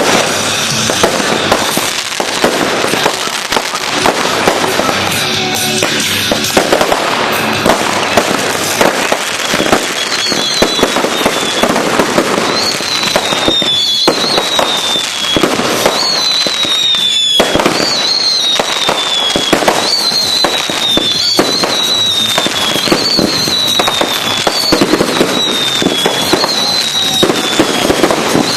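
A multi-shot fireworks cake firing in a dense, continuous barrage of bangs and crackling. From about ten seconds in, short falling whistles come every second or so among the shots.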